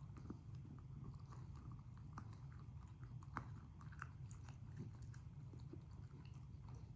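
A Staffordshire bull terrier chewing a snack: irregular small crunches and clicks, over a low steady hum.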